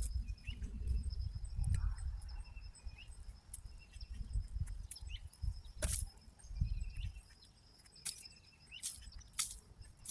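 A steady, high-pitched insect trill with short bird chirps now and then, over low rustling and a few sharp clicks from hands pulling weeds out of the soil.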